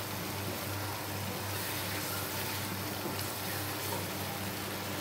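Onion-tomato masala thinned with chicken stock sizzling and bubbling steadily in a wok over a medium flame, with a wooden spatula stirring through it and a few faint scrapes. A steady low hum runs underneath.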